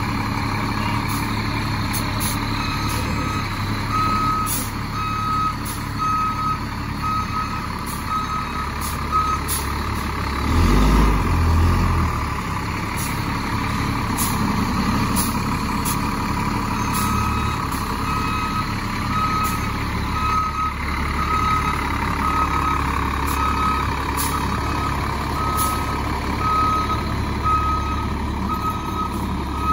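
Fire engine reversing: its backup alarm beeps steadily, a little over once a second, over the steady low running of its diesel engine. The beeping stops for several seconds partway through, during which there is a short louder low rumble.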